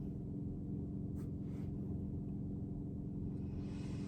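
Steady low hum with a few even tones, like a motor or an appliance running.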